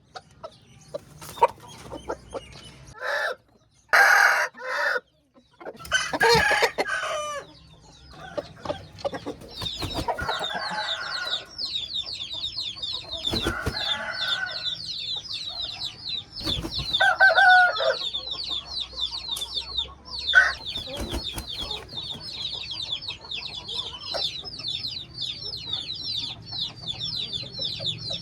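Roosters crowing several times, with clucking between the crows. From about a third of the way in, a dense run of rapid, high chirps carries on underneath.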